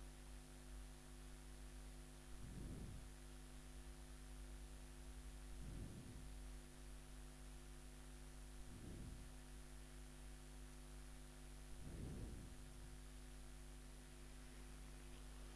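Near silence: a steady electrical hum and faint hiss from the recording chain, with a faint low whoosh about every three seconds.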